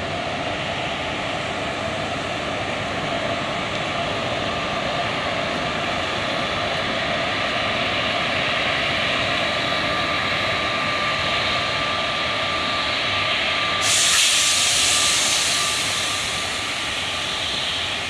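Electric locomotive hauling a passenger train past: a steady rush of running noise with a faint constant high tone. About three-quarters of the way through, a loud hiss suddenly joins in and then slowly fades.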